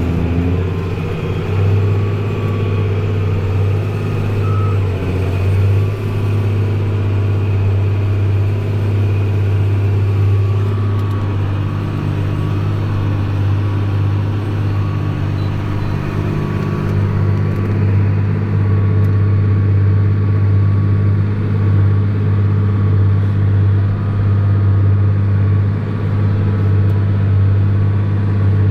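New Holland TG285 tractor's six-cylinder diesel engine running steadily under load, pulling a plough through damp ground.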